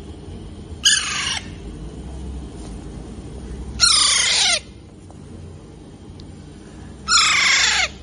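Young Alexandrine parakeets giving three loud, harsh squawks, each sliding down in pitch and lasting under a second, spaced about three seconds apart.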